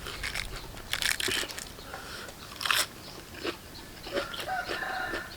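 A person biting and chewing crisp raw vegetables: several crunches, the loudest about a second in and just under three seconds in. A short pitched sound comes in near the end.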